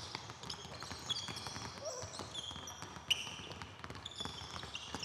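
Several basketballs being dribbled on a gym floor, an irregular patter of bounces, with frequent short, high-pitched sneaker squeaks as players stop and change direction.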